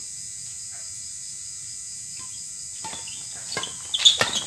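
Badminton rally: sharp racket strikes on the shuttlecock and sneakers squeaking on the court, starting about three seconds in and loudest about a second later, over a steady high-pitched background hiss.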